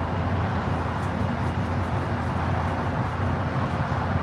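Diesel locomotive of a TRE commuter train running with a steady low rumble as the train moves slowly back into the station after overshooting the platform.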